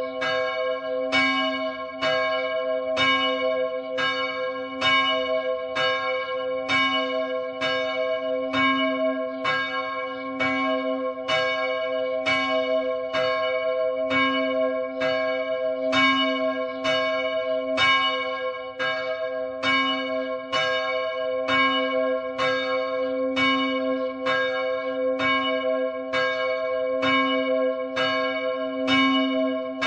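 Church bell ringing in even, repeated strokes, about one every three-quarters of a second, each stroke ringing on into the next.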